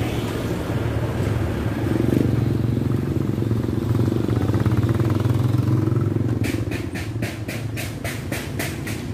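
Motorcycle engine running steadily with a low hum. From about six seconds in, a quick regular run of clicks, about five a second, sounds over it.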